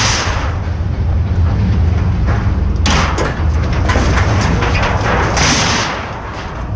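Scrap metal being pulled from a pickup bed and dropped on the pile: clattering and scraping metal, with sharp clanks about three seconds in and again around five and a half seconds, over a steady low rumble.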